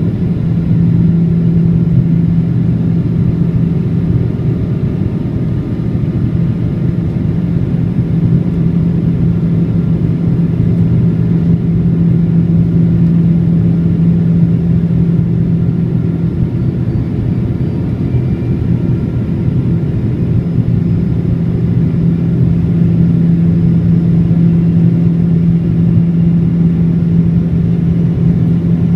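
Boeing 777-200's twin jet engines running, a loud steady rumble with a low steady hum that eases slightly midway and then builds again.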